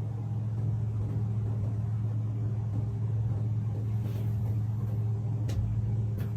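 Steady low electrical hum of a running appliance or motor, with two light clicks near the end.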